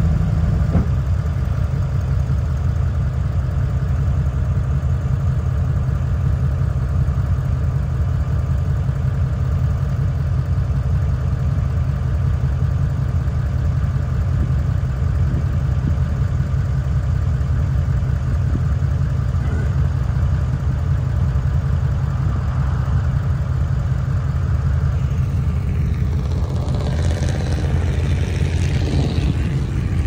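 Duramax diesel pickup engine idling steadily with a low rumble. Near the end, a hissing rush joins it.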